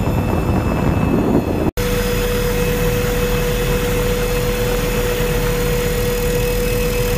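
Helicopter cabin noise: a steady rotor and engine drone. It is rougher and noisier at first, cuts out for an instant just under two seconds in, then returns with a steady whine over the drone.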